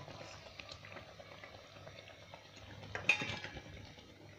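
Mandazi frying in hot oil in a stainless-steel pot, the oil bubbling steadily, with a few clinks of a metal spoon against the pot. The loudest is a ringing clink about three seconds in.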